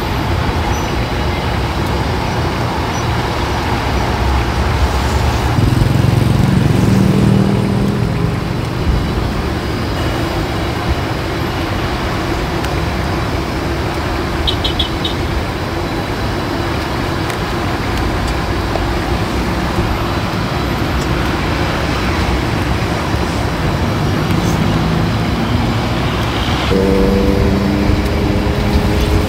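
Steady road traffic noise: vehicles running and passing, with a heavier engine passing about five to eight seconds in and another engine note starting near the end.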